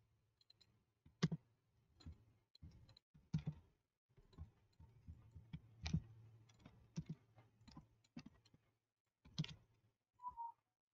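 Faint, irregular computer mouse clicks and keyboard key presses over a low steady hum.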